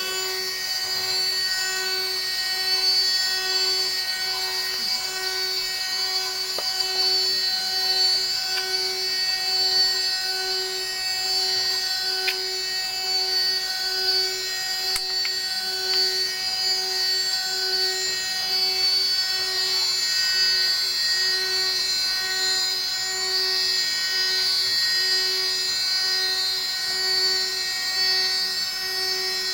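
DIY CNC milling machine cutting aluminium: a steady high-pitched spindle-and-cutter whine, with a lower tone that pulses on and off at an even rate.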